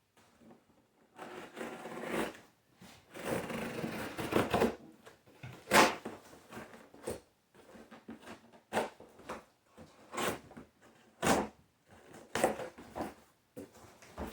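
Cardboard shipping box and its packing being opened and handled by hand: two longer stretches of scraping and rustling in the first five seconds, then a series of sharp knocks and clicks.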